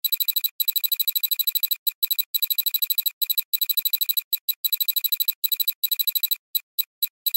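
Electronic alarm-like trill: a high tone pulsing rapidly, about ten times a second, in runs broken by short gaps. The runs get shorter near the end.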